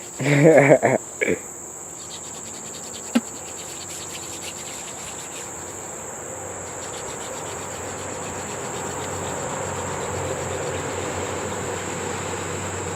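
Wooden hand-drill spindle spun between the palms into a hearth board: a steady dry rasping that slowly grows louder. A short voice is heard at the start, with one sharp click a few seconds in. A steady high insect drone runs throughout.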